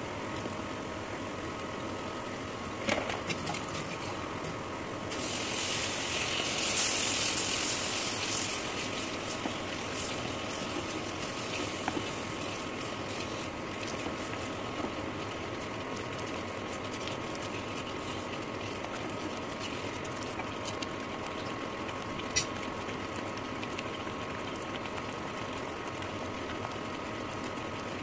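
Masala frying in oil in a kadai, stirred with a wooden spatula: a steady sizzle that swells into a louder hiss for a few seconds about a fifth of the way in, with a few knocks of the spatula against the pan. A steady electric hum from the cooktop runs underneath.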